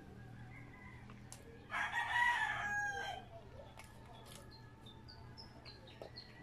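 A rooster crowing once, about two seconds in, for about a second and a half, its pitch dropping at the end. Faint clicks of a plastic spoon scraping rice in a cardboard box can be heard around it.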